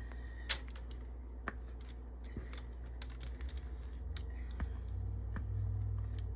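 Scattered light clicks and knocks of a utensil against a mixing bowl as thick fudge mixture is dumped and scraped into a parchment-lined pan, over a steady low hum.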